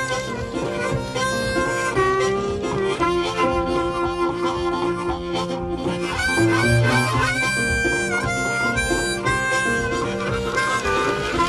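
Background music led by a harmonica playing held notes, some of them bending in pitch.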